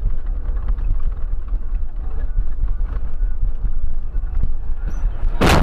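Vehicle road rumble with heavy wind buffeting on the microphone as the camera travels along the road, then a loud, sudden burst of noise near the end.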